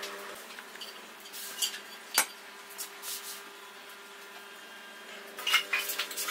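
Pine strips handled and set down on a wooden workbench: light wooden knocks and clatter, with one sharp knock about two seconds in and a flurry of clatter near the end, over a faint steady hum.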